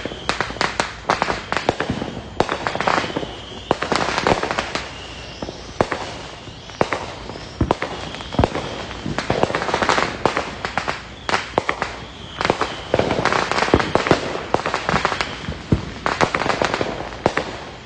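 Fireworks going off all around: long strings of firecrackers crackling and popping in rapid clusters, with louder single bangs every few seconds.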